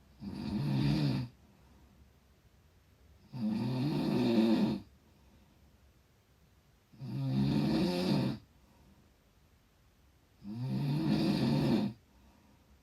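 A person snoring: four loud snores about three and a half seconds apart, each lasting about a second, with quiet between them.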